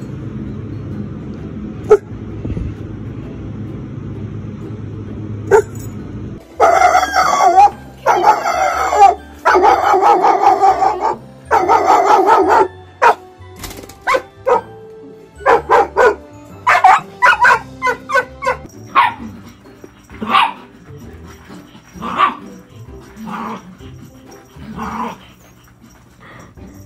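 Dogs barking: for the first six seconds only a low outdoor rumble and a sharp click, then long loud runs of barking, followed by shorter separate barks and yips.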